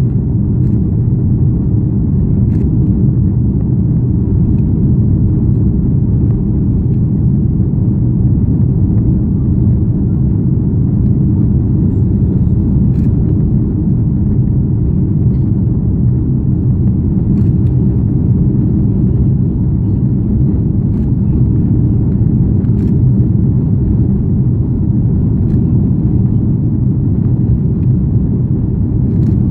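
Jet airliner cabin noise during the climb after takeoff: the engines and the rush of air heard from inside the cabin as a loud, steady, deep rumble that does not change.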